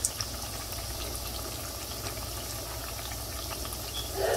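Sliced ripe plantains frying in hot vegetable oil: a steady sizzle and bubbling with small scattered crackles. A brief louder noise comes near the end.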